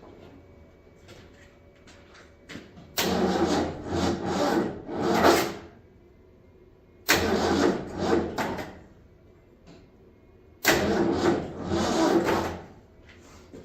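Old Ford Bronco engine cranked on the starter three times, about two seconds each with a pulsing rhythm, without catching. These are first-start attempts on a freshly reassembled engine whose fuel supply is still in doubt.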